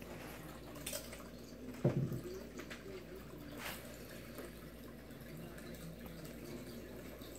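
Faint trickling and dripping of water circulating in a small EcoQube desktop aquarium, with a soft low thump about two seconds in and a couple of light clicks.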